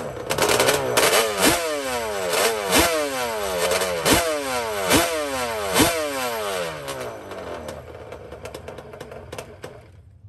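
Motorcycle engine of a drag-racing quad revved in about six sharp throttle blips, each falling back toward idle. After the blips it dies down and is nearly quiet by the end.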